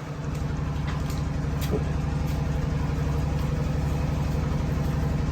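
An engine idling steadily, its pitch unchanging.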